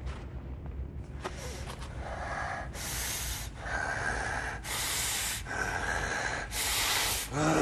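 A person breathing heavily and rhythmically: a loud hissing breath about every two seconds, alternating with softer ones and growing louder. A low voiced moan begins near the end.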